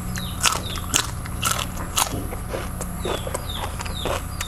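A person chewing crunchy food, biting and crunching about twice a second in a steady rhythm.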